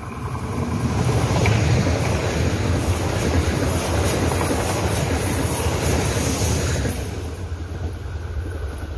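ITX-Saemaeul electric multiple-unit train passing close by: the rumble of its wheels on the rails swells as it arrives, holds while the cars go past, and fades near the end as the last car passes.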